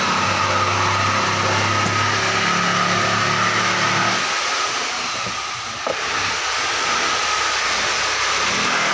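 Machinery running with a steady noisy drone and a held high whine. Its low hum drops away about four seconds in and returns near the end.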